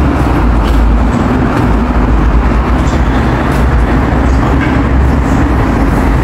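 Loud, steady low rumble of outdoor street noise, heavy in the bass, with no distinct event standing out.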